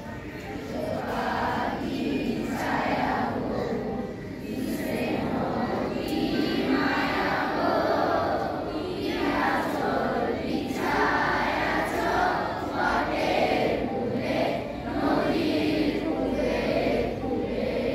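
Many girls' voices together in unison, a group chant or song at a school assembly line-up, coming in phrases of a second or two with short breaks.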